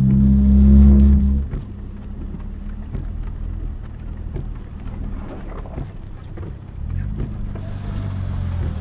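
Off-road vehicle's engine running as it drives through a river crossing, with scattered knocks. A loud steady drone drops away suddenly about a second and a half in, leaving a lower, rougher running sound whose pitch rises again near the end.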